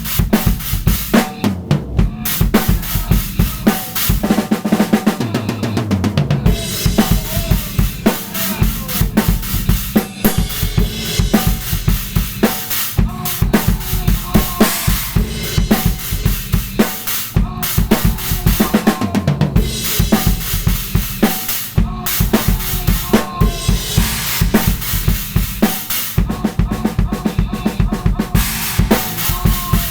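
Drum kit played in a busy improvised groove: bass drum, snare and cymbals struck densely without a pause.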